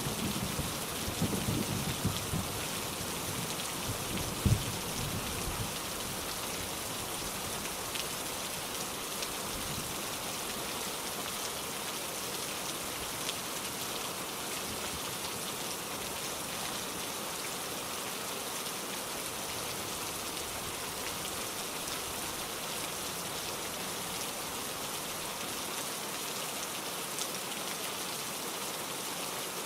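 Steady rain falling, an even hiss throughout. A low thunder rumble dies away over the first few seconds, with one sharp low thump about four and a half seconds in.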